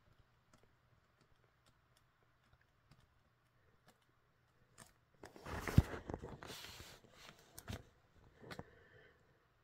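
Handling noise: faint scattered clicks, then about two seconds of rustling with one sharp knock about six seconds in, followed by a few softer knocks.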